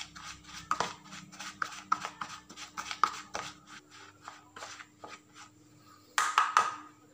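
A metal spoon stirring damp, crumbly fish-bait powder in a plastic bowl: a string of short scrapes and taps, several a second, thinning out after about five seconds, with a louder cluster of scrapes near the end.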